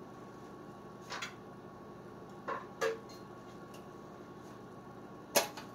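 A few short knocks and clinks from handling a small engine's loose recoil pull-start housing, which is missing some of its screws; the sharpest knock comes near the end.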